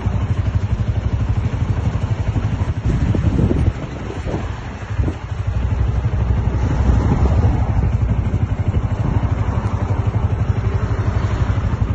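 A vehicle engine running close by: a steady low rumble with a fast throb, dipping briefly about four seconds in.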